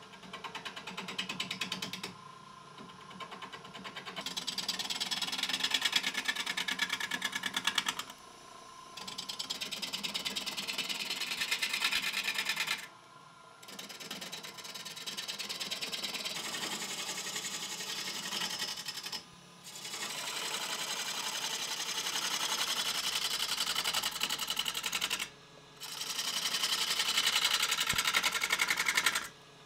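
Turning tool cutting a spinning sycamore blank on a wood lathe: a fast, rapidly ticking rasp of the tool against the wood. It comes in passes of a few seconds each with short breaks between them.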